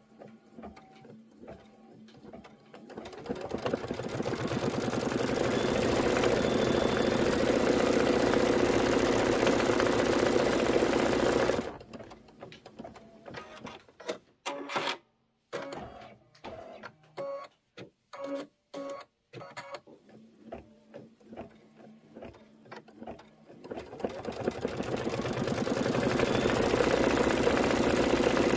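Embroidery machine stitching out a design. It builds up to a steady fast run a few seconds in and stops abruptly near the middle. It then makes short, irregular stitching clicks and brief bursts, and ramps back up to full speed near the end.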